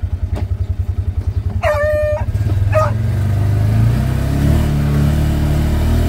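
Polaris Ranger 570's single-cylinder engine idling with an even pulse, then revving up hard as the throttle is floored and the machine pulls away, the pitch rising and then holding steady at high revs. An electronic beep sounds twice as it starts to rev, one long and one short.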